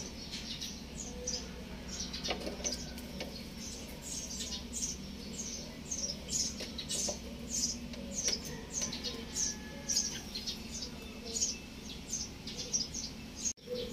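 Small birds chirping over and over in short, high, downward-sliding chirps, a few a second, over a steady low hum.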